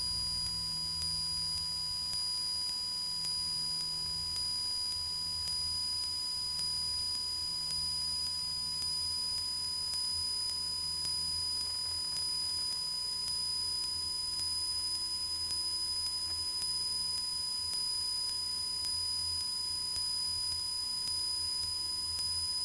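Cessna 172's engine at climb power, heard as a quiet, steady low drone through the cockpit intercom feed, with a constant thin electronic whine from the audio line over it.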